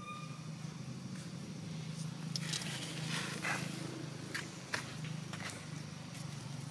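Footsteps scuffing and crackling on dry fallen leaves, a string of short rustles, over a steady low hum.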